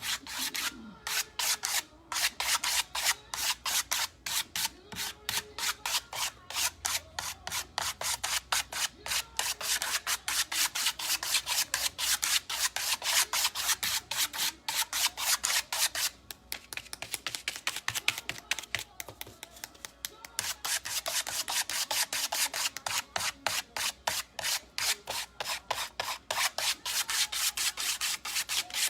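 Quick back-and-forth rubbing strokes on the painted wooden sign, about four a second with a short pause about halfway through: the paint is being worked over to give the wood a distressed look.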